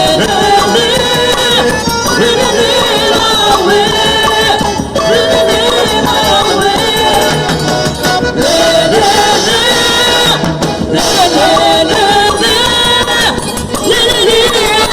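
Loud festa junina quadrilha music playing, a melodic passage with no words heard.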